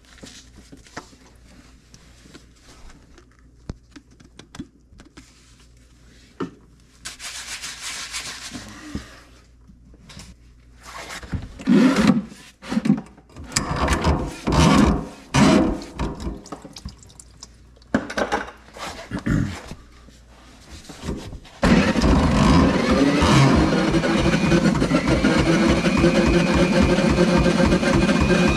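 Scattered knocks and clatter, with a short hiss about seven seconds in, then a motor starts abruptly about 22 seconds in and runs steadily to the end.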